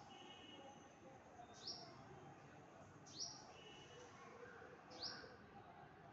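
A bird calling a short, sharp, high note three times, evenly spaced about a second and a half apart, with faint twittering and a soft steady hiss behind.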